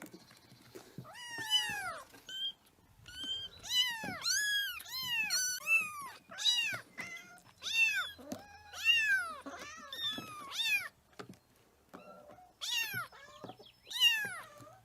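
Kittens meowing over and over, high-pitched mews that rise and fall, several coming close together and some overlapping, with a short pause about eleven seconds in.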